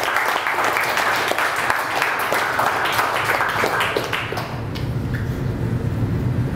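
A small group clapping hands in applause, dense and even, thinning out about four seconds in and giving way to a low steady hum.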